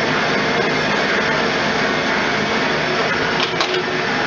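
Traub A25 cam-type automatic lathe running steadily, turning a brass nut blank, with a few sharp clicks about three and a half seconds in.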